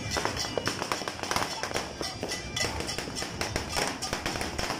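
Fireworks and firecrackers going off: many rapid, irregular, overlapping pops and cracks.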